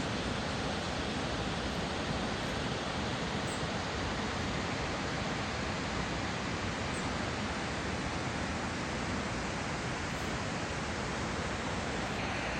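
Steady rushing of Magod Falls, a large waterfall on the Bedthi river.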